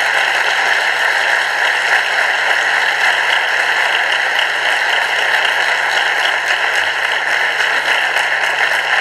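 Audience applauding, a dense, steady clapping that holds throughout.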